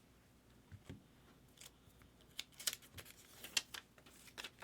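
Trading cards being handled: a series of light, irregular clicks and rustles.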